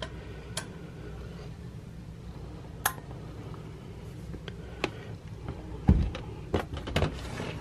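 Sparse light clicks and taps of hard objects being handled, with a duller knock about six seconds in, over a low steady hum.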